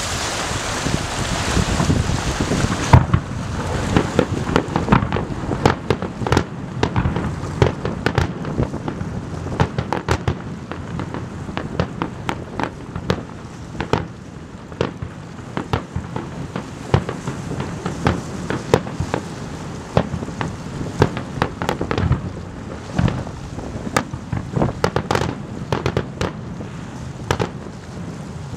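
Fireworks display: aerial shells bursting in many sharp bangs at irregular intervals, some close together. A rushing hiss fills the first three seconds, then drops away.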